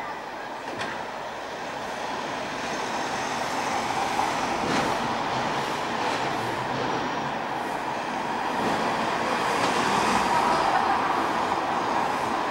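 City street traffic, growing louder over several seconds as a vehicle approaches and passes, with a few sharp clicks and a wavering whine near the end.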